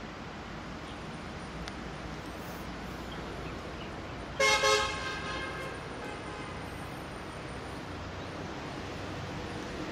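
Steady rumble of 25T passenger coaches rolling past on the rails, with a short, loud double horn blast from a train about halfway through.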